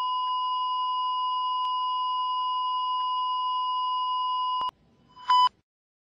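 A steady 1 kHz electronic test tone, held for about four and a half seconds and then cut off abruptly. A short beep at the same pitch follows about half a second later.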